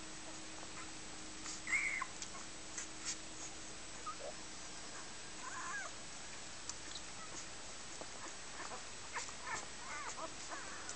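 Newborn Dalmatian puppies squeaking and whimpering faintly while they nurse, in a few short high squeaks: one about two seconds in, one around the middle, and several near the end, with scattered small clicks between.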